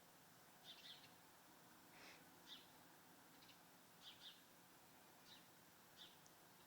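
Faint, short chirps of small birds outside, single and in quick pairs, about one every second.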